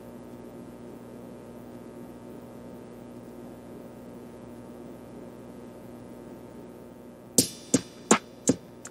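Background music: a quiet held tone, then, about seven seconds in, a run of sharp percussive beats at about three a second.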